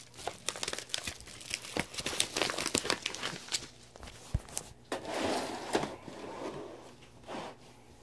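Paper packaging being torn open and crumpled by hand: a run of crinkling and ripping, with a longer rustle a little past the middle.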